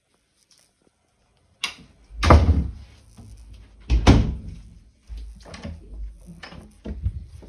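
An interior door being handled: a latch click about a second and a half in, then two heavy thumps and several lighter knocks.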